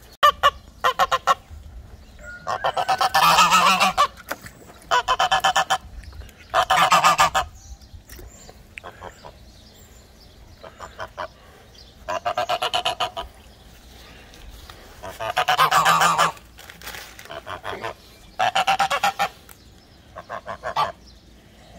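A bird honking over and over: loud, pulsing calls about a second long each, repeated every couple of seconds.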